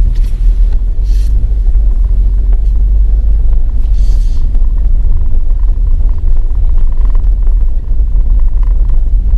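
Steady low road-and-drivetrain rumble inside a Haval H9's cabin while it is driven at low speed in second or third gear, with a few short hisses near the start and about four seconds in.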